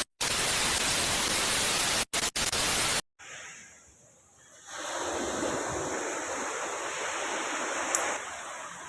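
About three seconds of loud, even static hiss with a few brief dropouts, cutting off suddenly. After a short lull, steady outdoor wind and surf noise rises and continues.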